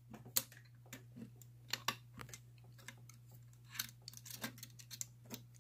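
Faint, irregular metal clicks and light scrapes from a homemade bicycle-spoke tension wrench and overlifter working inside an English lever lock, while the picker tries to lift the lever stack.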